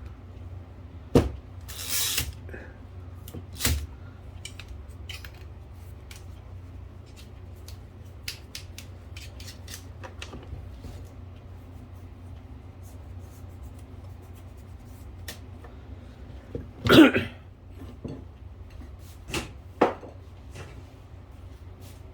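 Workbench handling sounds in a typewriter repair shop: scattered light clicks, taps and a few sharper knocks of metal parts and tools. There is a short hiss about two seconds in and the loudest clunk later on, all over a steady low hum.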